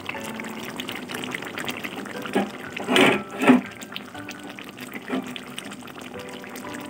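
Potato curry simmering in the pan, a soft, steady bubbling and crackling, with two brief louder sounds about three seconds in.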